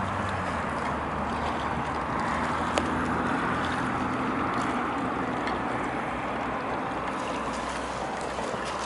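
Small waves lapping at the lake's edge, with wind noise on the microphone, steady throughout; a single sharp click about three seconds in.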